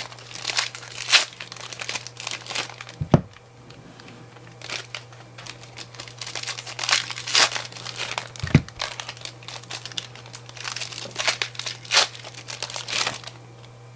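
Plastic wrappers of 2018-19 Donruss basketball card packs being torn open and crinkled while the cards are handled, in irregular crackling bursts. Two dull knocks come about three seconds in and again about eight and a half seconds in, over a steady low hum.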